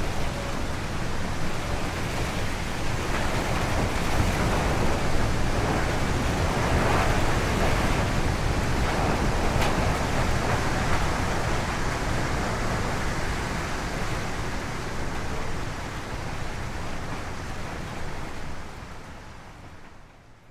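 Wind sound effect: a steady rushing noise of gusting wind, fading out near the end.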